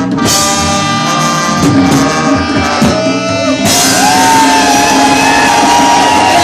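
Reggae music played loud through a sound system, turning brighter and fuller a little past halfway.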